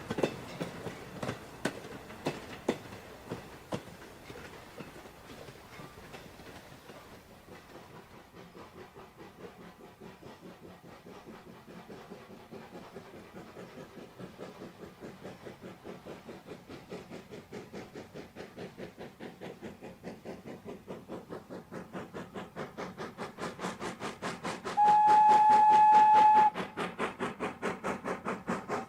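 Moving train: irregular clatter at first, then a steady rhythmic beat of about four a second that grows louder. Near the end a single-pitched train whistle blows for about two seconds.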